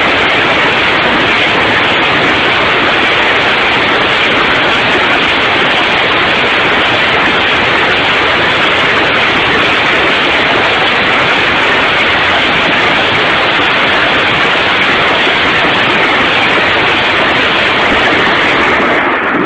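BM-21 Grad multiple rocket launcher firing a salvo: the rockets leave in quick succession and merge into one loud, unbroken rushing noise that overloads the microphone into a hiss. It stops just before the end.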